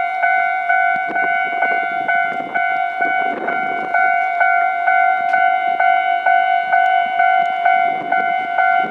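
Japanese railway level-crossing warning bell ringing, an electronic clang repeating a little over twice a second, with some lower rumbling noise beneath it in places.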